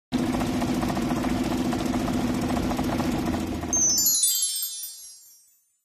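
Suzuki DF15ES four-stroke outboard motor running steadily with its cowling off for about four seconds. Near the end a sparkling chime steps down in pitch and fades out.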